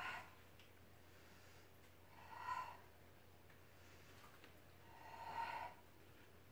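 A woman breathing hard with exertion during a floor exercise: two loud breaths, about two seconds in and again about five seconds in.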